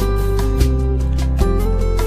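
Background music: a gentle melody of held notes moving over a steady bass line.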